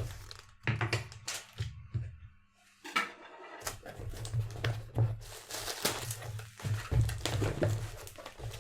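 An online-order parcel being unpacked by hand, its bubble wrap handled: irregular rustling and crinkling with light knocks and clicks.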